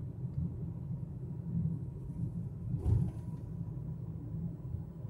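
Low, steady rumble of a car's road and engine noise heard from inside the cabin, with a single thump about three seconds in.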